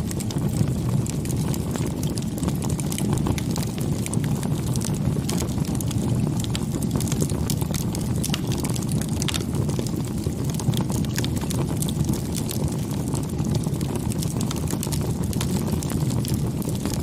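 Campfire burning: a steady low rumble of the flames with frequent small crackles and pops from the burning wood.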